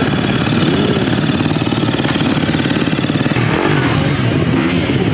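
Dirt bike engine running, its revs rising and falling a couple of times with blips of the throttle.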